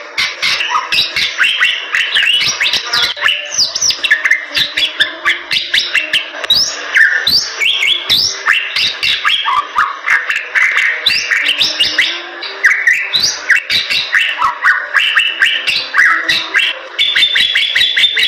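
Bali myna singing a long, unbroken, rapid song of varied whistles, squeaky glides and many sharp clicks.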